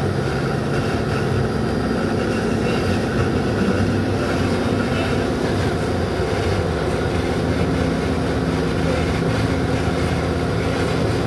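Car engine and tyre noise heard from inside the cabin while driving: a steady hum over road rumble, with the engine note shifting slightly about halfway through.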